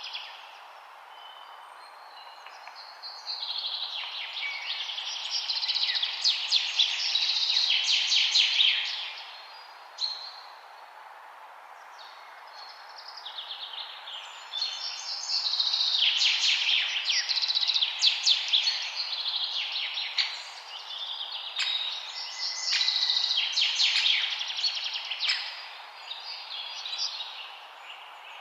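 Songbirds singing in bursts of fast chirps and trills a few seconds long, with short pauses between, over a steady background hiss of outdoor ambience.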